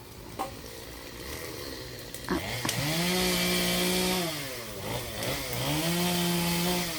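A two-stroke chainsaw revved to full throttle twice, each time held high for about a second and a half before easing back down.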